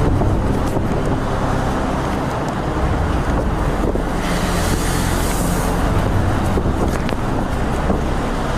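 Storm wind and heavy surf: a loud, steady rushing noise with a deep rumble, growing brighter and hissier for a second or two about four seconds in.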